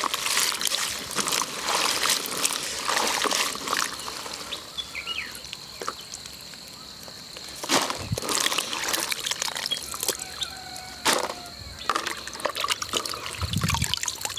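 Hands swishing and rubbing green chillies in a tub of water, with splashing, then water trickling and pouring off handfuls lifted out of the tub. Two sharp knocks partway through, and a steady high whine in the background from about the middle on.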